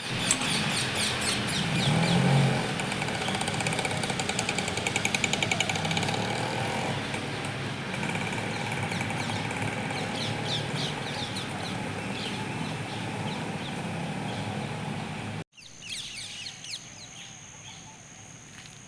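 Many birds chirping and calling in quick repeated notes over a steady background rumble. About fifteen seconds in the sound cuts to a quieter scene with more bird calls and a steady high-pitched whine.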